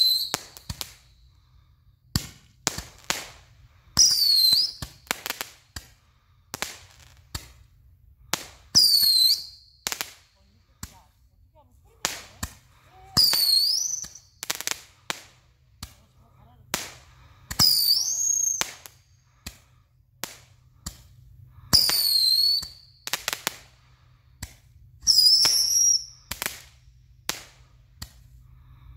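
Small fireworks going off: a high whistle, falling then rising in pitch and about a second long, shrieks seven times at roughly four-second intervals, with sharp pops and crackles in between.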